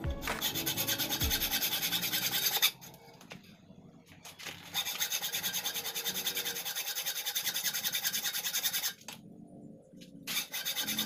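Hacksaw cutting through a metal motorcycle brake master cylinder clamped in a vise, in fast back-and-forth rasping strokes. The sawing stops twice for a second or two, about two and a half seconds in and again near the end.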